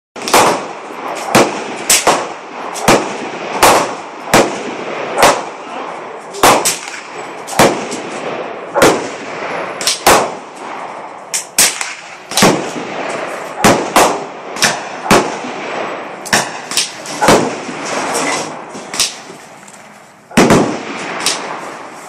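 Gunfire on an outdoor shooting range: close to thirty sharp shots at uneven intervals, one to two a second, some nearly overlapping, with echo hanging between them. A short lull comes near the end, then two loud shots close together.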